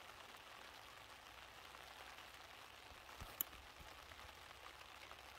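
Faint, steady hiss of light rain falling, with one short sharp click about three and a half seconds in.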